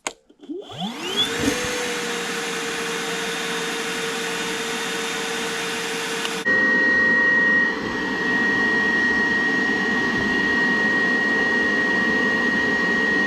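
Wet/dry vacuum motor spinning up with a rising whine and then running steadily, sucking out a clogged condensate drain line. About six and a half seconds in, the sound suddenly gets louder and a steady high whistle joins it.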